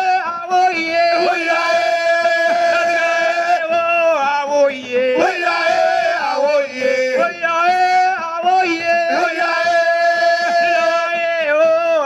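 A man singing a chant-like melody with long held notes that step up and down, the phrase breaking off and starting again every few seconds.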